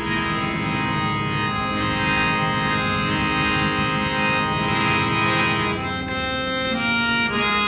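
Instrumental passage of a song playing, with long held keyboard-like notes and no singing; the notes change about six seconds in.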